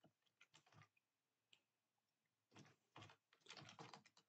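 Faint computer keyboard typing: a few scattered keystrokes, then a quick run of key clicks from about two and a half seconds in.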